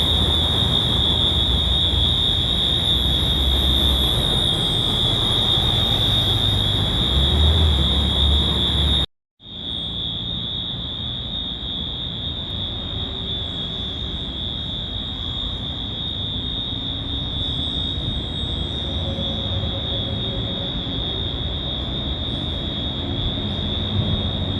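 Stadium fire alarm sounding a continuous, steady high-pitched tone over a low background rumble. It cuts out for a moment about nine seconds in, then carries on.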